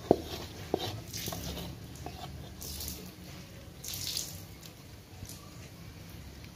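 A spatula scraping spice paste off a metal pan into a pot of broth and stirring it through the liquid. There are two sharp knocks against the pan in the first second, then sloshing with a few short scrapes.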